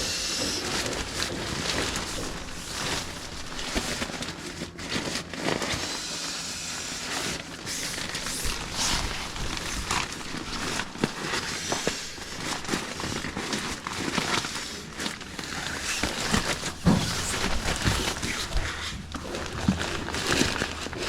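Repeated puffs of breath blown into an inflatable sleeping mat's valve, mouth held slightly off the valve, with rustling and crackling of the mat's fabric.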